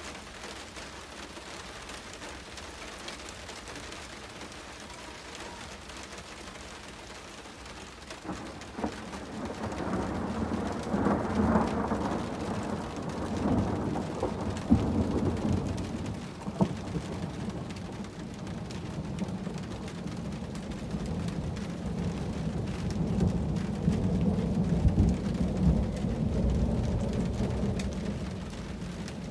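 Steady rain falling, then, about eight seconds in, a long rolling peal of thunder that builds with a few sharp cracks and rumbles on for some twenty seconds before easing near the end.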